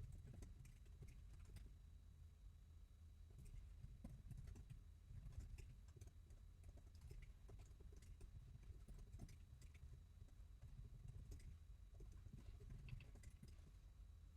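Faint computer keyboard typing: scattered, irregular keystrokes and clicks over a low steady room hum.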